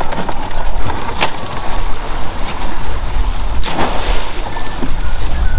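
Wind buffeting the microphone on a small boat under way in choppy sea, over a steady low rumble and the wash of water, with two sharp knocks, one about a second in and one near the middle.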